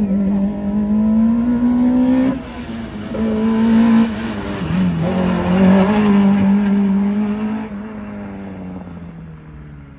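Small slalom race car's engine revving hard through the cones. The pitch climbs, drops sharply a couple of seconds in as the driver lifts, and climbs again. It falls and fades near the end as the car drives away.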